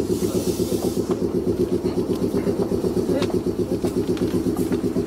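Underfloor air compressor of a stationary Meitetsu 6800-series electric train chugging in a fast, even rhythm, about six beats a second. A hiss of air cuts off about a second in.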